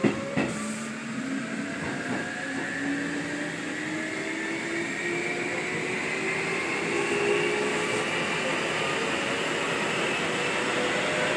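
Keikyu 800 series electric train's field-chopper traction motors and gears whining, several tones rising slowly and steadily in pitch as the train picks up speed, over running noise from the wheels and track. A couple of sharp knocks come in the first half second.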